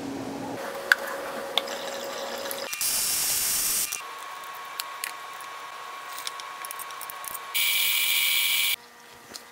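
Electric stand mixer running with a steady motor whine as it mixes bagel dough, in short takes that change abruptly. It is louder and higher around three seconds in and again near the end, with scattered sharp clicks.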